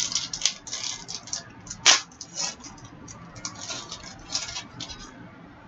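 Trading card pack wrapper being torn open and cards handled: a run of short, irregular crackles and rustles, with one sharp snap about two seconds in.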